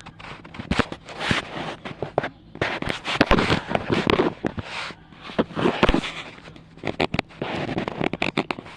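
Plastic toy packaging crinkling and rustling in irregular bursts, with many sharp clicks as small toy pieces are handled.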